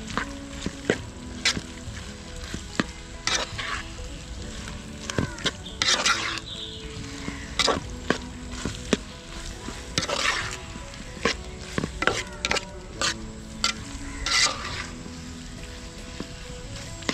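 Long slotted metal spoon stirring snail masala frying in oil in a large aluminium pot: repeated sharp clicks and knocks of the spoon on the pot, with several longer scrapes along its side, over a steady sizzle.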